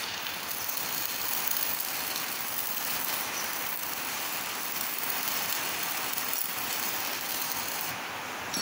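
Electric arc welding on steel: the arc gives a steady, dense crackling hiss that eases slightly near the end.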